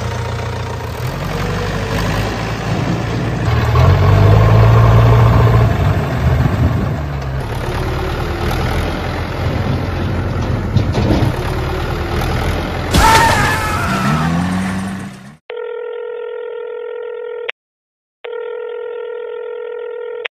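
Tractor engine running and revving for about fifteen seconds, louder around four to six seconds in and with a brief sharp flare near thirteen seconds. It cuts off and is followed by two long, steady electronic beeps.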